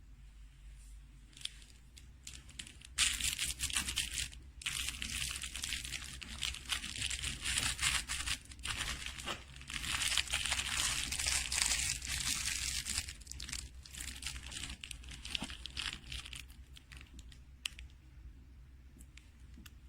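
Crinkling and rustling of a plush dog toy, dense and loud from about three seconds in and thinning out into scattered crackles after about sixteen seconds.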